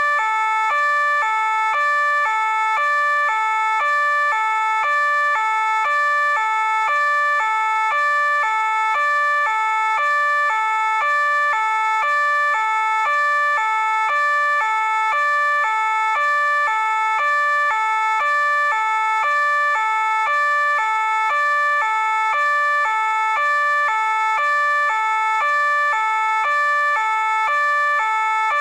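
French police two-tone siren, alternating steadily between a lower and a higher note about once a second.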